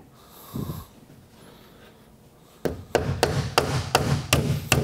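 Hammer tapping finish nails through a quarter-inch birch plywood back into the bookcase's edges. A quick run of sharp strikes, about four a second, starts a little past halfway.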